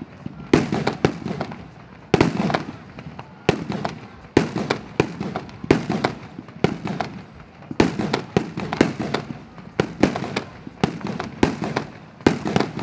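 Fireworks display: aerial shells bursting in an irregular, rapid string of sharp bangs, several a second at times, with crackling and a short rumbling tail after the loudest ones.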